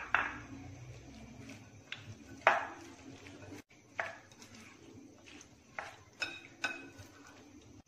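Metal cutlery clinking against a cut-glass bowl while sliced potato is stirred into thick gram-flour pakora batter: about eight sharp clinks at irregular spacing, the loudest at the start and about two and a half seconds in.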